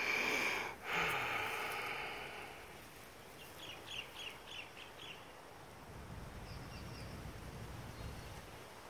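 A dog sniffing in the grass at the start, then a bird's quick chattering call of about seven short notes in the middle, and a low rumble later on.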